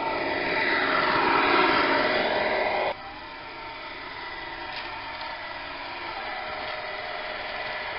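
Tamiya 1/14-scale radio-controlled Volvo tanker truck driving on paving, its motor and gears getting louder as it nears and then cutting off abruptly about three seconds in. After that it runs more quietly and steadily as it approaches again from further off.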